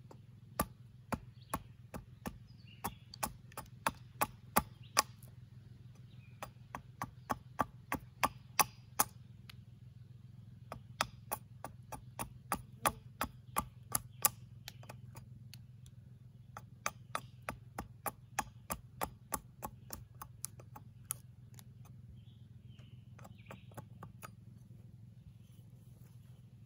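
Hatchet chopping into a catalpa spoon billet, roughing out the blank. The sharp strikes come about two to three a second in runs of roughly ten, with short pauses between runs, and thin to a few light taps near the end.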